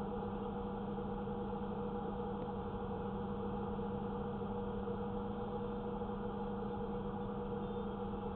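Steady engine hum with a constant hiss, a vehicle engine idling.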